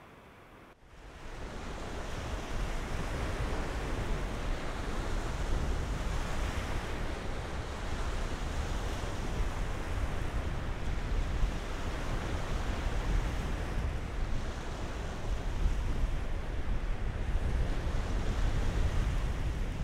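Lake Baikal's waves washing on the shore in a strong wind, with wind buffeting the microphone. It comes in suddenly about a second in and then goes on as a steady, surging rush with a heavy low rumble.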